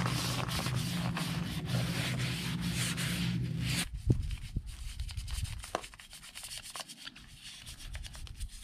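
Wash mitt scrubbing the rim and spokes of a wet, soapy spoked motorcycle wheel. Dense rubbing with a low hum beneath it for about four seconds, then fainter rubbing with a few light knocks.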